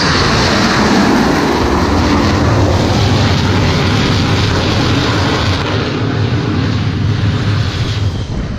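F/A-18 fighter's jet engines running loud on the carrier deck just after an arrested landing: a steady rush of jet noise that eases a little near the end.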